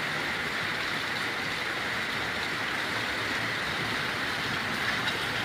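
Steady heavy rain falling, an even hiss that holds the same level throughout.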